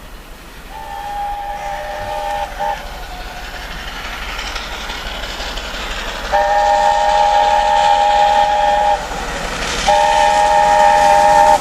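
LNER A4 Pacific locomotive's chime whistle sounding three times as it approaches at speed: a short blast about a second in with a brief extra pip, then a long blast and another long one near the end. Beneath it the locomotive's running noise grows steadily louder as it nears.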